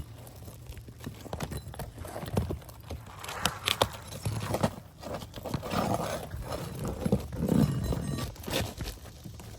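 Irregular knocking and scraping on a roof as a wind-damaged, brittle dimensional asphalt shingle is worked loose for replacement.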